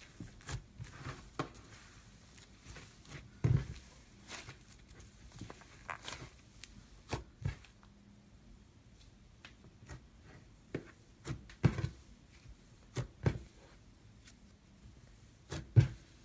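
Green foam slime with sprinkle beads being stretched, pulled apart and squeezed by hand, giving irregular crackles and pops with soft squishes. The pops come one or two at a time, with the loudest a little before the end.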